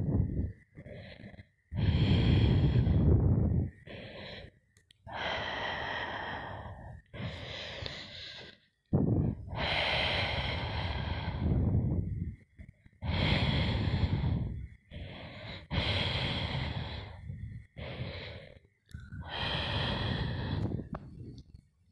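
Heavy, rasping animal breaths, each about one to two seconds long, come again and again with short pauses between them. A faint steady high tone sounds in the gaps.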